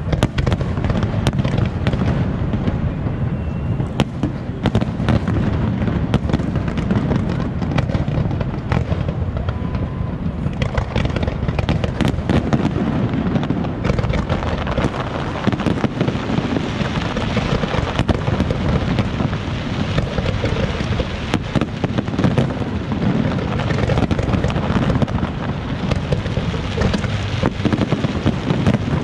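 Fireworks display: a continuous barrage of shells bursting, many sharp bangs overlapping with a deep rumble. The crackling thickens from about halfway through.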